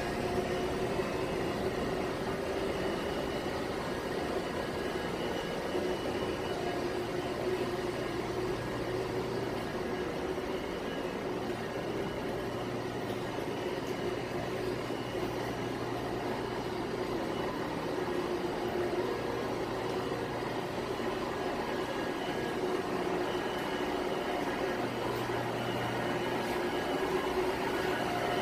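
Steady machinery drone in a ship's engine room: electric motors and pumps running, with a constant hum and a few steady tones over an even rush of noise. A deeper hum swells in and out a few times.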